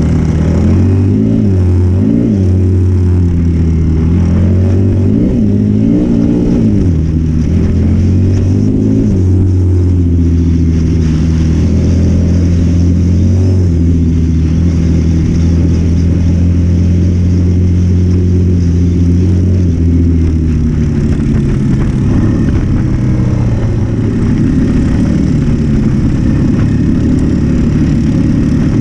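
Single-cylinder trail bike engine under way on a dirt track, its note rising and falling with the throttle over the first several seconds, then holding steady before easing off about two-thirds of the way through. Wind rushes over the bike-mounted microphone throughout.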